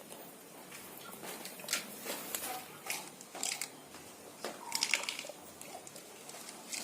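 A chicken pecking: scattered light clicks and crunches, roughly one every half second, over low background noise.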